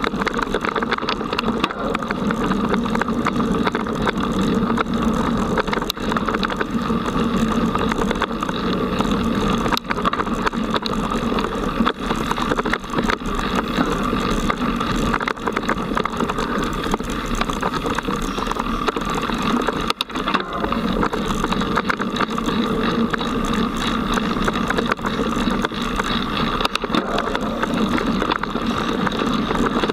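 Mountain bike ridden fast over a forest dirt trail, heard from a camera mounted on the bike: continuous rolling and rattling noise with frequent small knocks and clicks over the bumps.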